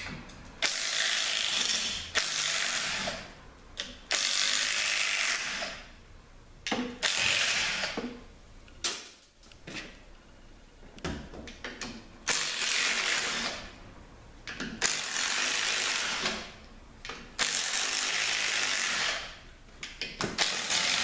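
Ratchet wrench working in about eight separate runs of a second or two each, with short pauses between them.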